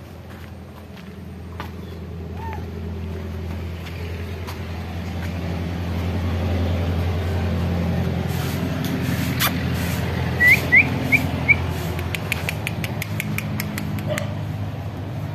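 A motor vehicle's engine running, a steady low drone that swells over the first several seconds and then holds. About ten seconds in come four short high rising chirps, then a quick run of light clicks.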